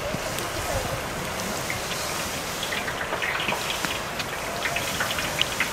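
Bread dough deep-frying in hot oil in a pot over a wood fire: a steady sizzle with scattered small pops, the pops growing more frequent about halfway through.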